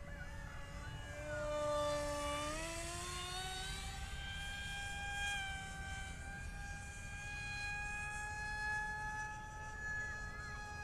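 Brushless electric motor and small propeller of a model RC F-22 Raptor jet whining in flight, its pitch rising about two and a half seconds in and then holding steady. Wind rumbles on the microphone underneath.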